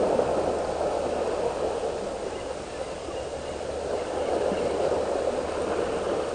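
Small sea waves washing and splashing over the boulders of a rock breakwater: a steady rushing.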